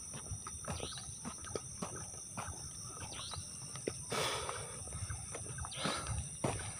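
Crickets and other night insects singing steadily, over scattered short clicks and rustles of someone walking through grass. A brief rush of noise comes about four seconds in.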